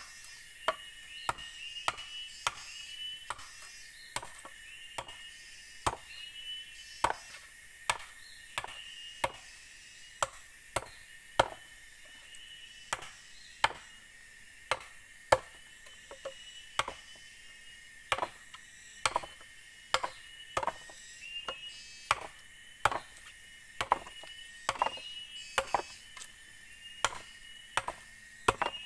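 Machete chopping into a green bamboo stalk to split it. Sharp, uneven strikes come a little more than once a second.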